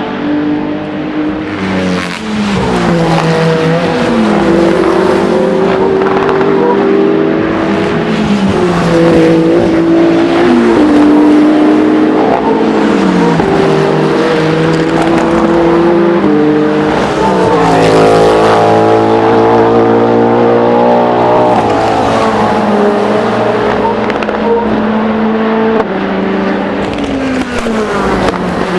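Race car engines on track at full volume, several at once, their pitch climbing in steps through upshifts and falling in glides on downshifts as the cars pass.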